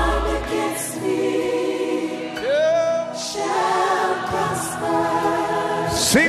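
Choir singing a gospel worship song in held, sustained notes. A deep bass note underneath stops about half a second in.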